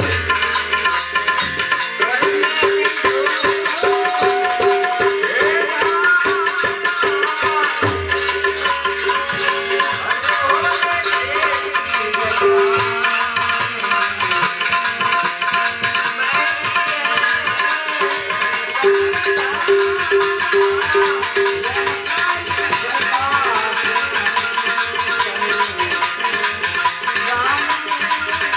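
Indian devotional music: tabla drumming with a steady rhythm under a melodic instrument playing held notes.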